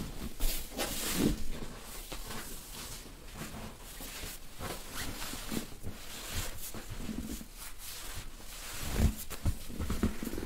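Hands rubbing and pressing on clothing during a dry massage: irregular rustling strokes of fabric, with a couple of soft low thumps about nine seconds in.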